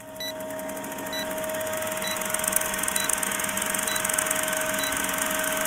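Old film-projector countdown sound effect: a steady mechanical whirring rattle over a constant hum, with a short tick about once a second.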